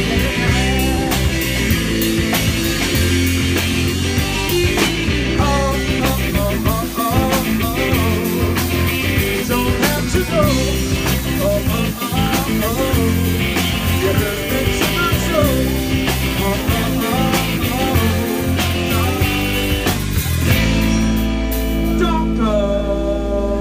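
Live rock band playing drum kit, bass guitar and guitar, with a lead line bending in pitch over the top. About twenty seconds in the drums stop and the band holds a ringing final chord.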